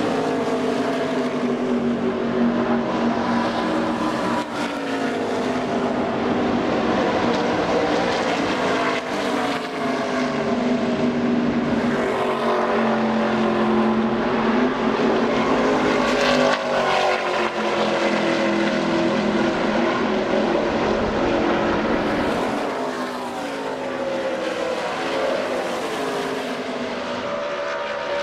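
ARCA stock car V8 engines running, their pitch rising and falling again and again as cars accelerate and pass, sometimes one car and sometimes several together.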